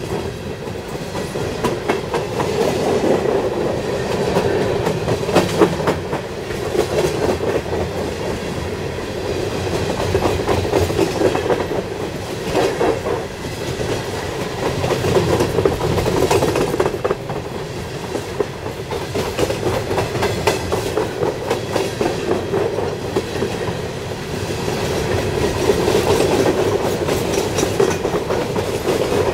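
Coal hopper cars of a freight train rolling past at close range: a steady rumble with the clatter of wheels over the rail joints, swelling and easing every few seconds as the cars go by.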